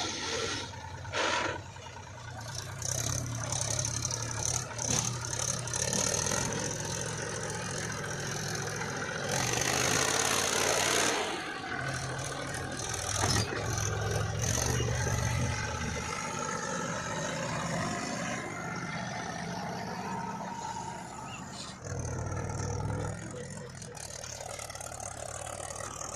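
Diesel earth-moving machinery running, the engine note rising and falling as it works under load, with scattered clanks and a louder rush of noise for a couple of seconds about ten seconds in.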